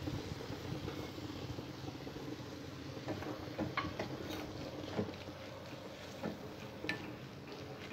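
Spinach and chana dal frying quietly in a metal kadai, with a few light clicks and scrapes of a spatula against the pan as garlic cloves are stirred in, from about three seconds in.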